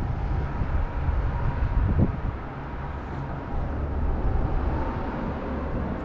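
Steady low rumble of wind buffeting the microphone over the hiss of flowing river water, with a single short knock about two seconds in.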